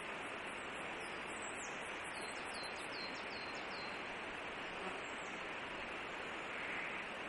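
A small songbird calling in a run of thin, high, down-slurred notes, from about a second in to about four seconds in, with a few more near five seconds, over a steady hiss of background noise.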